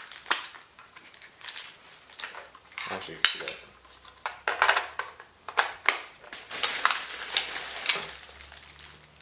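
Plastic packaging and bubble wrap crinkling and rustling as small items are handled and pulled from a cardboard box, with scattered light clicks and knocks.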